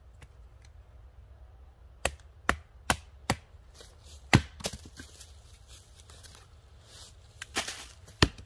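Hatchet splitting firewood on a wooden chopping stump: a piece of wood stuck on the blade is struck down onto the block again and again. Sharp knocks come about two and a half times a second from about two seconds in, the loudest near the middle. Then there is a short, noisier patch and one more sharp knock near the end.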